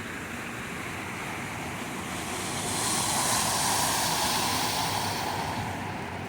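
A car driving through floodwater on the road, its tyres throwing up spray: a rushing wash that swells about two seconds in, peaks, and fades near the end, over a steady hiss of rain.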